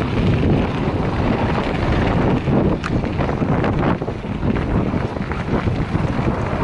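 Wind rushing over the microphone of a camera on a moving bicycle, loud and low, with a few small ticks and crunches, one sharp tick about three seconds in.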